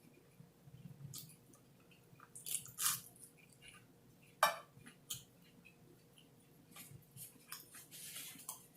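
A person chewing a burger: faint, scattered wet smacks and clicks of the mouth with quiet gaps, the sharpest about four and a half seconds in.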